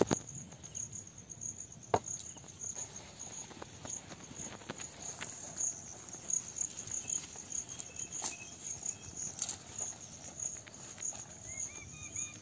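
Insects chirping in a steady, rapidly pulsing high trill, with a few sharp clicks and knocks scattered through it.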